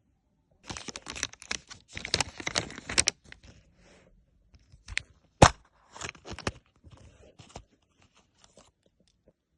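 Packaging being torn open and crinkled in short crackly bursts, with one sharp snap about halfway through.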